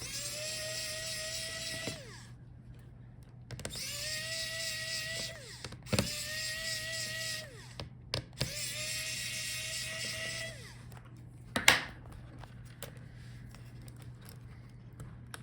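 Small electric screwdriver backing out laptop hinge screws: four runs of a steady motor whine, each about two seconds, winding down as it stops. A sharp click follows a little after the last run.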